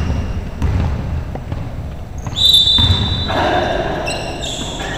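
Basketball game play: the ball thudding on the court, short high squeaks of shoes, and voices calling out from about midway.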